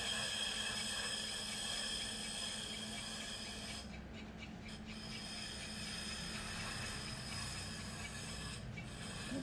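A trimming tool shaving a clay pot on a spinning electric pottery wheel: a steady scraping hiss over the hum and whine of the wheel's motor. The scraping drops out briefly a few times, around four to five seconds in and again near the end. The clay has dried harder than the ideal slightly wet stage for trimming.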